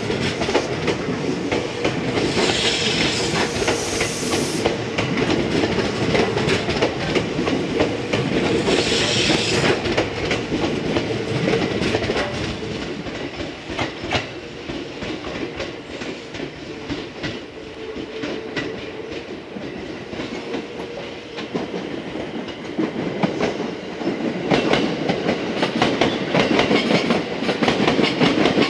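JR West 227-series electric trains running on the tracks: a steady rumble of wheels on rail with rapid clicking over the joints and a steady motor hum. Two short hisses come about two and nine seconds in.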